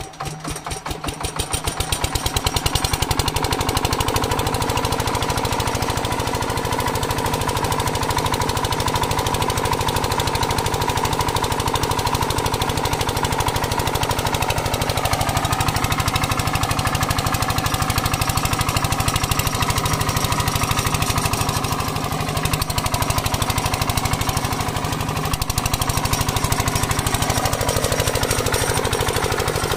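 An 8 hp Bharat single-cylinder diesel engine on a water pump set picks up speed over the first two seconds, then runs steadily with rapid, even exhaust beats. Water from the pump's delivery pipe splashes onto the ground.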